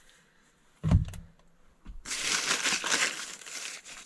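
A short low thump about a second in, then about two seconds of rustling and crinkling as a hand rummages in a paper bag lined with plastic.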